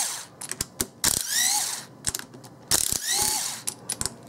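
Small Makita cordless driver backing screws out of a plastic drill housing in two short runs. Each run is a whir that rises in pitch as the motor spins up, with light clicks between the runs.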